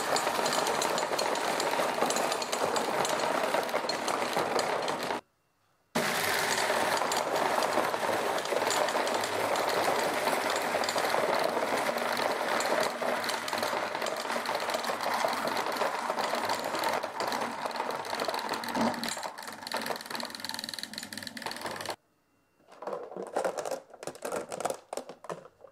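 3D-printed, solenoid-driven marble sorting machine running flat out, a dense, continuous rattle of marbles clacking along its chain and dropping into plastic bins at nearly 20 marbles a second. It breaks off for a moment about five seconds in and starts again, then stops near the end, leaving a few scattered marble clicks and clacks.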